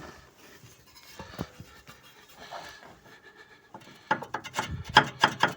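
Worn front suspension control arm silent block (rubber-metal bushing) knocking as the arm is worked, a sign that the bushing is worn. The first few seconds hold only faint clicks and rubbing; about four seconds in, a fast run of sharp knocks starts, around six or seven a second.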